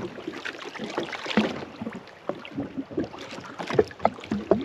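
Water lapping and slapping against the hull of a jet ski, with irregular short knocks and clicks.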